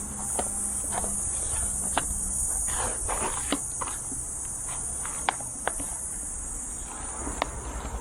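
Steady high-pitched chirring of insects, with scattered sharp clicks and a brief crackle about three seconds in from the vinyl sign and its backing being handled and peeled.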